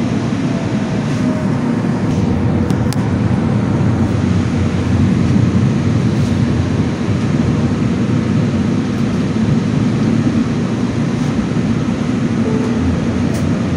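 Metro train running between stations, heard from inside the carriage: a loud, steady rumble, with a few faint clicks about three seconds in and near the end.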